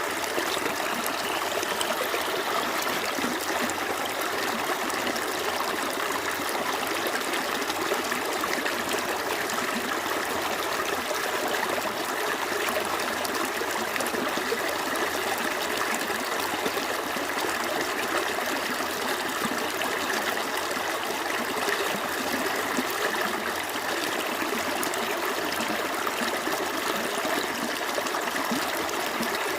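Small stream flowing steadily, water trickling and babbling over stones.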